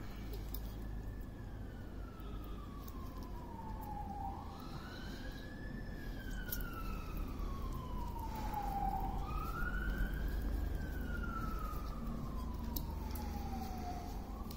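A siren wailing in slow cycles, each a quick climb in pitch followed by a long slow fall, about three times over, above a low steady rumble.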